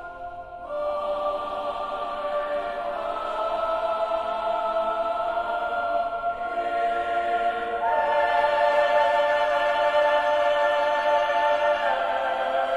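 Background music: slow choral chords held long, changing every few seconds and growing louder about a second in and again past halfway.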